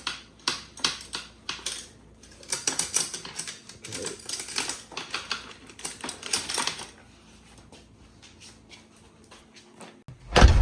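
Quick metallic clicking and rattling of a bicycle chain and its sprockets being worked by hand while someone tries to get the chain off. It thins out after about seven seconds, and there is a loud thud near the end.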